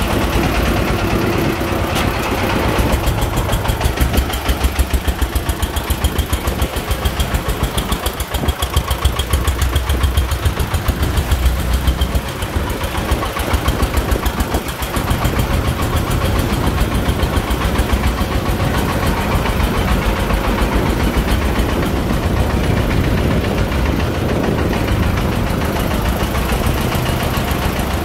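Single-cylinder diesel engine of a công nông farm truck loaded with soil, chugging steadily as it drives along, with a rapid even knock.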